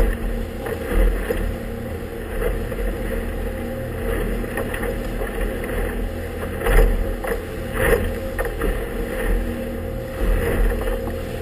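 Inflatable motorboat's motor running as it crosses choppy water, with wind buffeting the microphone and the hull slapping through the waves. Two sharper slaps come a little past halfway.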